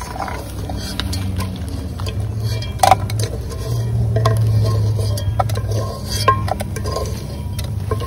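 Metal fork or spoon scraping and clinking in a frying pot and against a metal cup as fried pigeons are lifted out of the oil, with scattered knocks, the loudest about three seconds in, over a low steady rumble.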